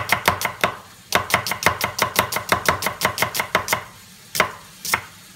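Kitchen knife chopping an onion on a cutting board in quick, even strokes, about six a second, with a short stop about a second in. The run ends a little before four seconds, followed by two single knocks.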